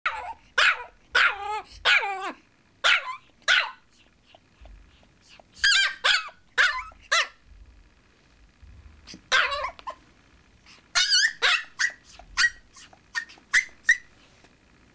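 Chihuahua puppy barking in sharp, high-pitched yips: about twenty barks in clusters with short pauses between, several sliding down in pitch. The puppy is barking at being tied on a leash that she is not yet used to.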